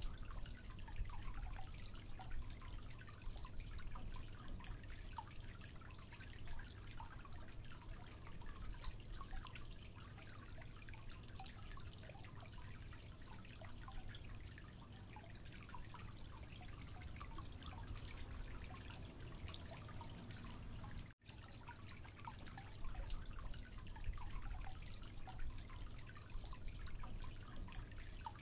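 Wooden spoon stirring and folding cupcake batter in a bowl: a steady run of small wet clicks and light scrapes as the spoon works the batter. A brief moment of silence about three-quarters of the way through.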